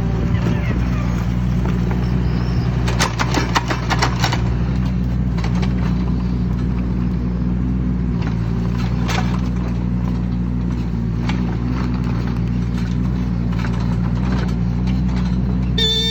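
Mini excavator's diesel engine running steadily, with a cluster of metallic clanks about three to four seconds in and a few single knocks later. A short pitched beep starts right at the end.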